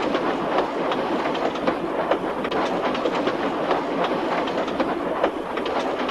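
Train running along the rails: a steady rolling noise with regular clicks about twice a second.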